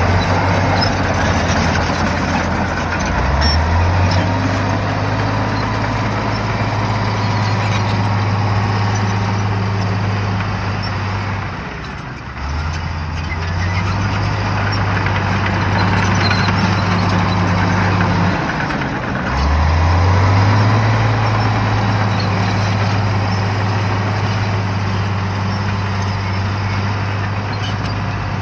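Shantui bulldozer's diesel engine revving up and holding under load three times, dropping back briefly between pushes, over a steady mechanical clatter.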